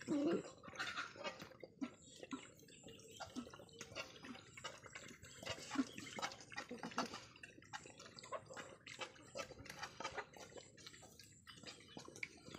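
Several young dogs eating together from pots and bowls: a dense, irregular run of wet lapping and slurping clicks.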